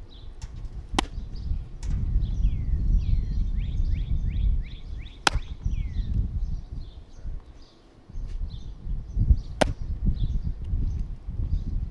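Three sharp pops of a baseball landing in a catcher's mitt, about four seconds apart, over a steady rumble of wind on the microphone. Birds chirp with many short falling notes throughout.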